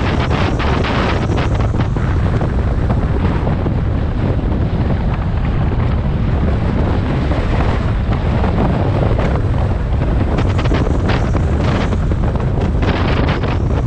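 Motorcycle riding at a steady pace, with heavy wind buffeting the microphone over a low, constant engine rumble.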